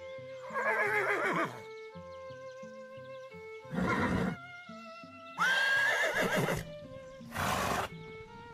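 Horses neighing over soft background music: two long, wavering whinnies, about a second in and about five and a half seconds in, with two shorter, noisier calls after each.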